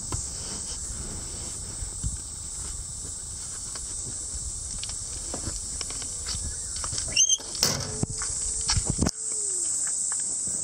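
A steady, high-pitched drone of insects. Under it, bedding and a foam mattress are being shifted, rustling, with a cluster of knocks about seven to nine seconds in.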